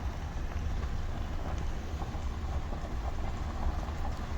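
Steady low rumble of a vehicle heard from inside the cab, engine and road noise with no clear change.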